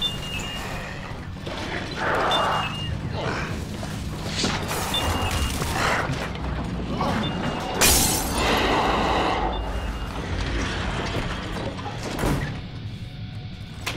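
Horror-film sound design: a low droning score with swelling whooshes and a sharp hit about eight seconds in, a smaller one near the end. Short faint beeps from a home security alarm keypad recur through it.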